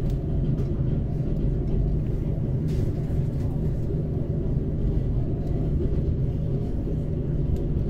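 Zentralbahn metre-gauge train running downhill, a steady low rumble with a faint steady hum.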